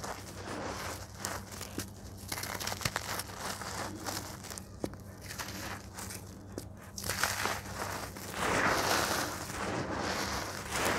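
Dry red dirt and crumbly lumps being crushed in the hands and sifted through the fingers into a basin of loose powder: gritty crackling with scattered small crunches, and a denser pouring hiss from about eight seconds in as handfuls are let fall.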